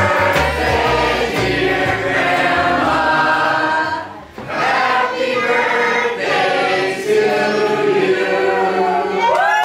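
A choir singing held notes together, breaking off briefly about four seconds in before carrying on.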